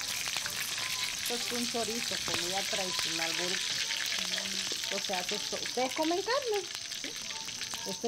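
Food sizzling steadily in a pan over a wood fire, with many small crackles and pops through the hiss.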